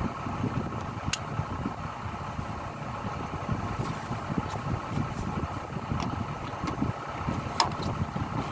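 Hitachi Zaxis excavator's diesel engine running steadily at idle, with two sharp clicks: one about a second in and one near the end.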